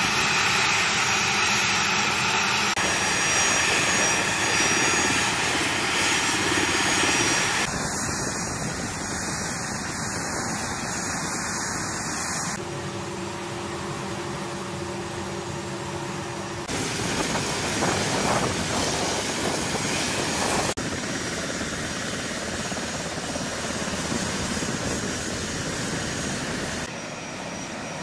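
An A-10C Thunderbolt II's twin TF34 turbofan engines running on the ground, a steady jet whine and rush; the engines are kept running during an integrated combat turn. The sound changes abruptly several times.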